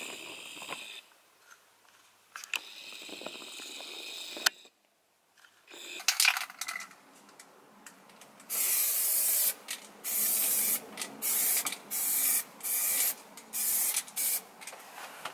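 Aerosol spray paint can spraying in a run of about eight short hisses in the second half. A few sharp clicks come just before.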